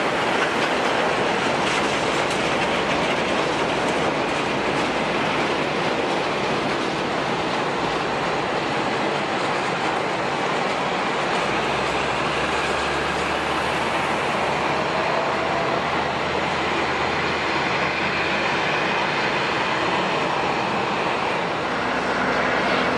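Steady roar of airliner jet engines, with a faint rising whine in the second half.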